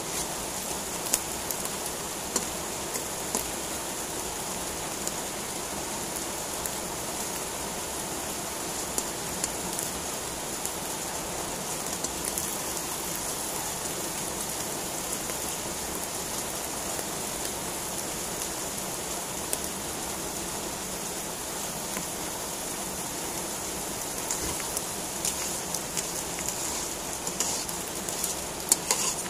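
Button mushrooms frying in hot oil in a wok: a steady sizzle with scattered small pops and crackles. Near the end the clicks come thicker as a spatula scrapes and knocks against the pan, stirring them.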